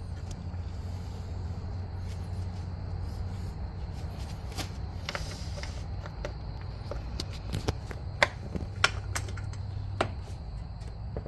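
Scattered light clicks and taps of hardware and tools being handled while bolts are threaded in by hand, coming more often in the second half, over a steady low hum.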